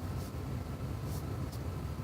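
1995 Mustang GT's 5.0 V8 running steadily at idle, a low even rumble.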